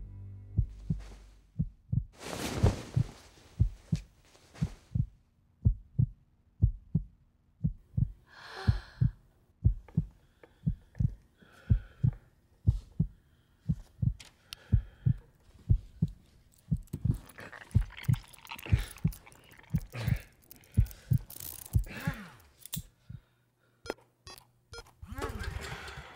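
Steady low heartbeat thumping, about two beats a second, a film sound effect for a creature coming to life. Swells of hiss and bursts of crackling rise over the beat several times, thickest in the second half.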